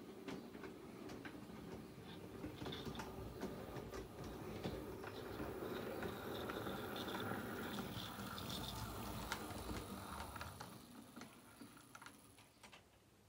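Model ex-LNER K3 steam locomotive running along layout track: its electric motor and wheels give a steady rumble and rattle, with scattered clicks as it passes over rail joints. The sound grows louder, then fades near the end.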